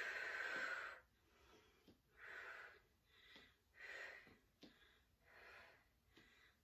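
A woman's breathing during standing banded glute kickbacks: a long, strong exhale in the first second, then several shorter, fainter breaths, each exhale paced to a kick back.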